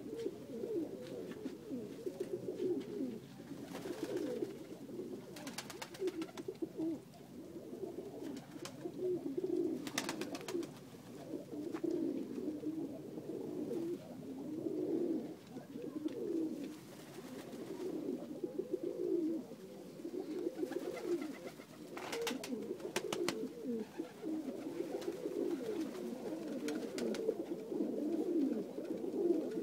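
A flock of Macedonian Dunek pigeons cooing continuously, many low coos overlapping one another, with a few short clicks here and there.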